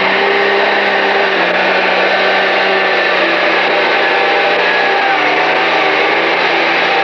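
Pulling tractor's engine running hard at steady high revs under load, with a continuous hiss and a held whine over it; the pitch steps down slightly about five seconds in.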